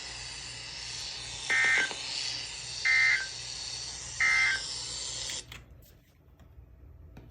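Emergency Alert System SAME data tones: three short, identical bursts of shrill digital warbling about a second and a half apart, the end-of-message signal that closes an alert. They play over a steady hiss, which cuts out about two-thirds of the way through, leaving a faint hum.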